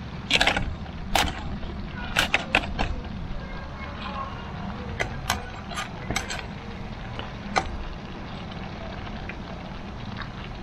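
Cooking gear being handled at a camp stove: a dozen or so sharp clicks and clacks, busiest in the first three seconds and again a few seconds later, over a steady low rumble.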